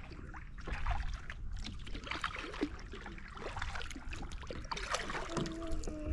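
Kayak paddle strokes: the blade dipping and pulling through the water, with splashes and drips running off the paddle, over a low rumble.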